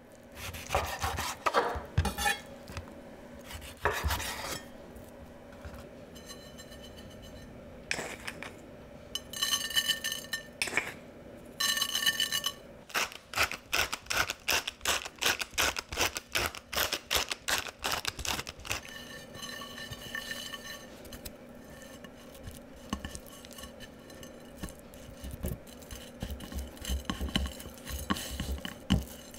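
Food-prep sounds: a knife cutting a raw cod fillet on a wooden cutting board, then seasoning scattered onto a plate in a fast run of rasping strokes, then hands rubbing the seasoning into the fish pieces.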